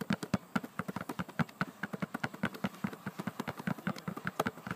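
Two balls, one of them a basketball, dribbled hard and fast at the same time on concrete: a quick, uneven patter of bounces, many a second.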